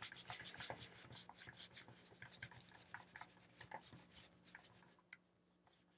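Faint scrubbing of a cloth against a steam iron's metal soleplate, a soft rubbing with small scratchy ticks that thins out after about four seconds, as melted felt residue is worked off the plate.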